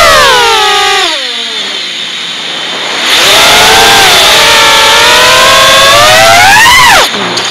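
FPV quadcopter's brushless motors and propellers whining, the pitch rising and falling with the throttle. It drops and goes quieter about a second in, comes back up around three seconds, climbs to a high whine near the end, then falls off sharply as the throttle is chopped.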